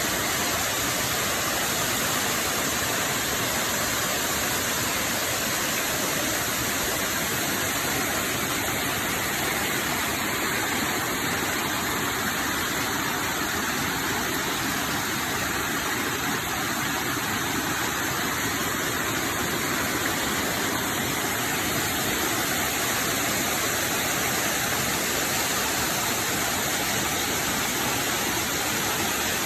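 Steady rushing water, an even unbroken hiss with no distinct events.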